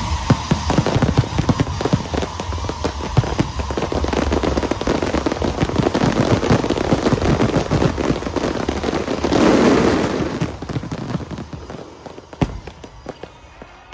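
Fireworks display: a dense barrage of crackling bursts and bangs swells to its loudest about nine and a half seconds in, then thins out to a last few sharp cracks.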